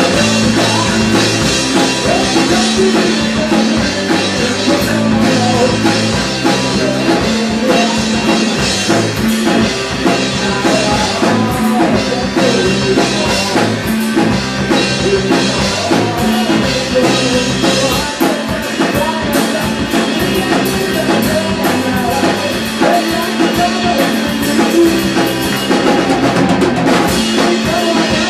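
A small rock band playing live: drum kit with frequent cymbal strikes, electric guitar and bass guitar through amplifiers.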